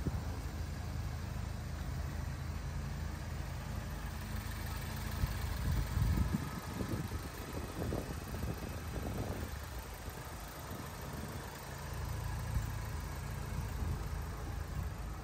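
The 2.0-litre turbocharged Ecotec four-cylinder of a 2008 Pontiac Solstice GXP idling steadily with the hood open. A few short rushing noises come in around the middle.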